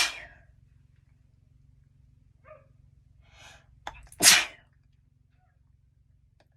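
A person sneezing twice: one sneeze right at the start and a second about four seconds in, after short breaths in.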